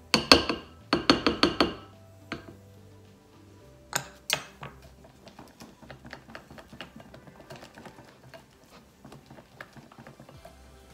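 Sharp clinks of a spatula knocked against a glass mixing bowl, a quick run of about five in the first two seconds and two more around four seconds in, then a wire whisk beating pancake batter in the glass bowl with fast, light clicking. Background music plays underneath.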